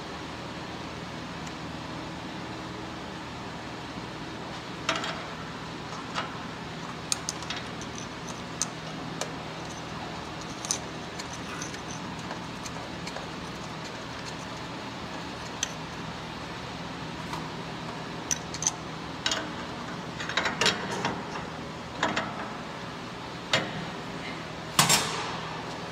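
Scattered small clicks, taps and rattles from hands handling an oxygen sensor's wiring and plastic connector under a vehicle, over a steady low hum. The clicks come more often in the last few seconds, ending in a louder scraping rattle.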